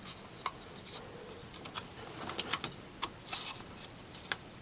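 Light clicks and scraping of small parts being handled as a little cover is fitted over the ignition coil in the distributor.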